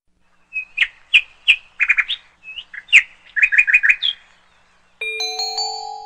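Caracal kitten chirping: a rapid series of short, high, bird-like chirps, some in quick runs of four or five. About five seconds in, a short electronic chime of steady tones sounds, then fades near the end.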